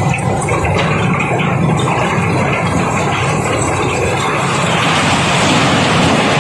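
Cobblestones pouring and rattling against each other as a barge is unloaded, over the steady run of a diesel engine; the rush of stones grows louder and brighter about four seconds in.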